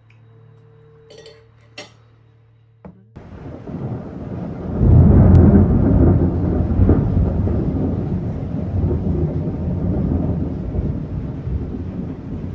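A long, deep rumble that sets in about three seconds in after a few faint clicks, swells to its loudest a couple of seconds later, and slowly eases off.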